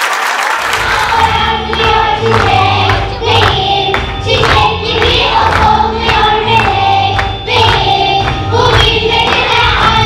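Children's choir singing over a backing track with a steady beat and bass, which starts about half a second in as applause dies away.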